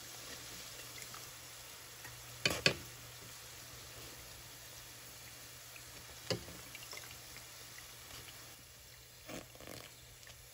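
Fish balls deep-frying in oil with a steady sizzle, while a stainless steel slotted skimmer stirs and lifts them. The skimmer clinks twice in quick succession about two and a half seconds in, once about six seconds in, and a couple of times more faintly near the end.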